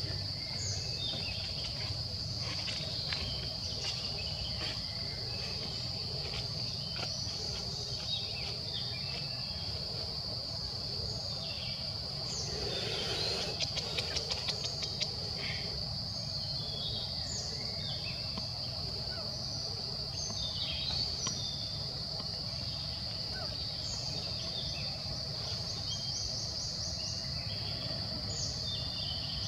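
Steady high-pitched drone of insects, with scattered short chirps over it. About halfway through, a brief run of sharp clicks stands out.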